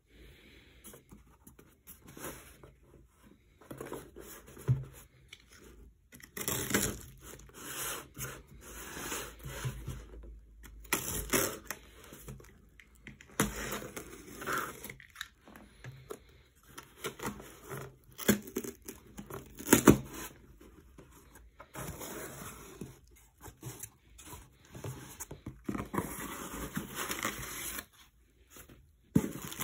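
Cardboard box sealed with filament packing tape being opened by hand: irregular tearing and scraping of tape on cardboard in stretches of varying length, with a few sharp clicks.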